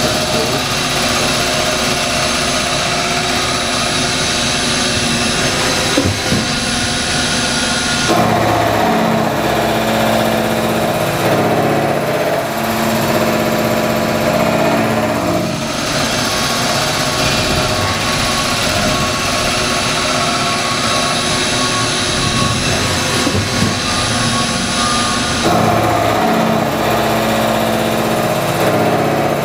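CNC milling machine cutting steel held on a magnetic chuck: the spindle and cutter run continuously with a steady, tonal machining sound whose pitch pattern shifts abruptly several times as the cut changes.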